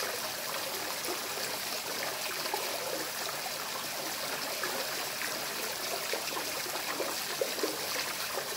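Koi pond water trickling and running steadily, with faint, irregular small splashes as a husky laps at the surface.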